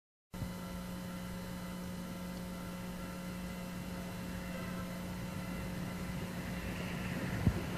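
Steam locomotive in a freight yard, heard faintly under a steady hum, with a hiss that grows louder toward the end and a single sharp knock near the end.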